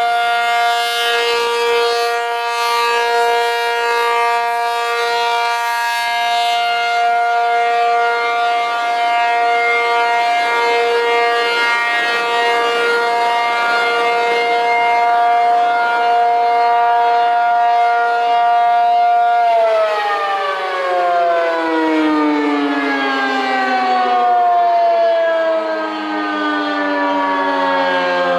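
ACA P-50 dual-tone outdoor warning siren sounding a steady two-note chord, the Alert signal. About 20 seconds in, both notes begin falling steadily in pitch as the rotor winds down.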